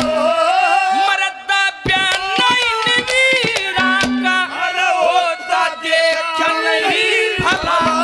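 Male singer performing a Haryanvi ragni into a microphone, his voice sliding and wavering through long held notes, over a steady run of sharp drum strokes.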